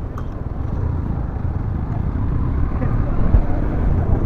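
Yamaha MT15 motorcycle on the move: engine and wind noise on the rider's microphone, with no clear steady pitch, growing a little louder about a second in.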